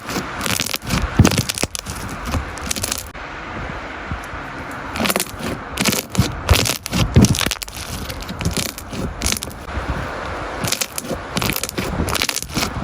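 Slime being squeezed and pressed by hand, giving irregular clusters of sharp crackling pops and crunches with short lulls between handlings.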